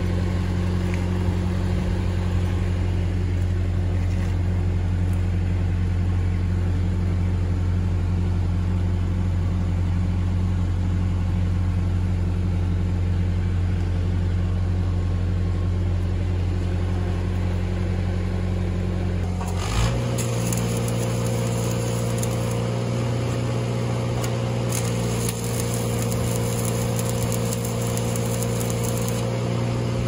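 Engine-driven Lincoln welder running steadily. About two-thirds of the way in, the engine picks up speed under welding load and the crackle of a 7018 stick-welding arc comes in, on and off, as tack welds are laid.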